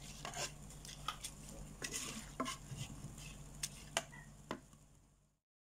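Wooden spatula stirring raw rice in chicken stock in a pot, with irregular scrapes and knocks against the pot over a steady low hum, fading out near the end.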